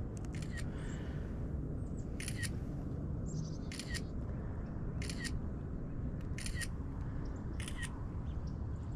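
Camera shutter firing five times, a short sharp double click about every second and a half, as photos of roof damage are taken. A steady low background noise runs underneath.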